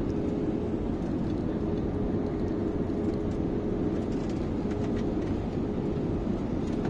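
Jet airliner cabin noise during descent: a steady low rush of the engines and airflow, with a constant hum running through it, heard from a window seat by the wing.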